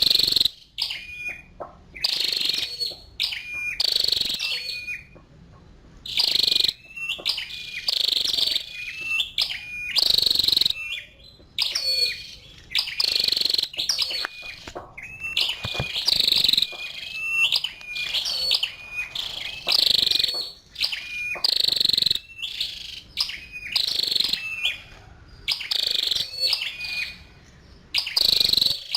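Female flowerpecker (chim sâu đầu đỏ) calling: short, sharp, high chips repeated about once a second, sometimes in quick pairs.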